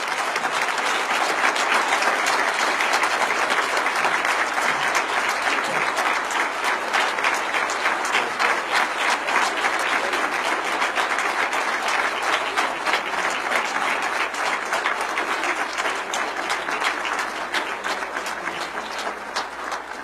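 Applause from a large audience: dense, sustained clapping with no break, easing off slightly near the end.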